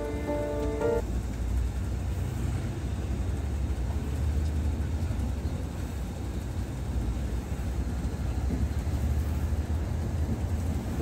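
Steady low rumble of a Volvo 9400 B11R coach on the move, heard from inside the cabin: its inline-six diesel engine and road noise. A short stretch of music ends about a second in.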